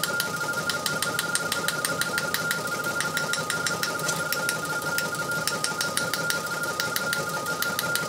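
Teletype Model 28 KSR teleprinter printing received radio teletype at 60 words per minute: an even, rapid clatter of print strokes, about six characters a second. Under it runs the steady high whistle of the RTTY signal's tones from the receiver.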